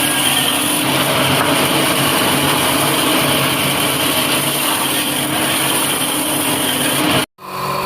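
A woodworking machine running steadily with a motor hum and broad whirring noise, cut off abruptly for an instant about seven seconds in before a similar steady machine noise resumes.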